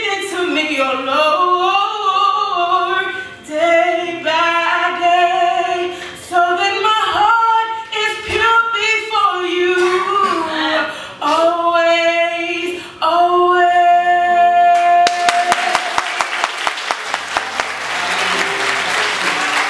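A woman sings a solo gospel song and holds a long final note; the congregation then claps and applauds for the last few seconds.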